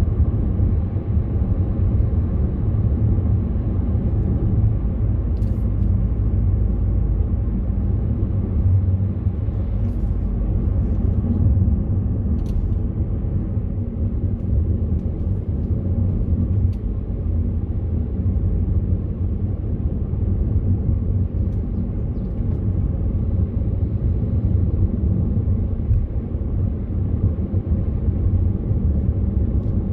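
Steady low rumble of a car driving on an open road, engine and tyre noise heard from inside the cabin, with a few faint clicks.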